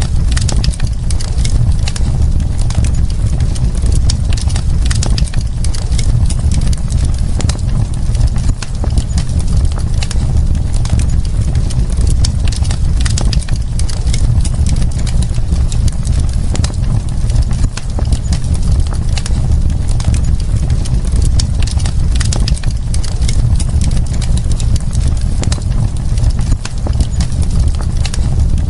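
Wood fire crackling, with many irregular sharp pops and snaps over a steady low rumble.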